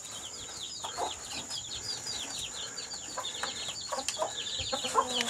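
A brood of chicks peeping continuously: many short, high chirps, each falling in pitch, overlapping several to the second.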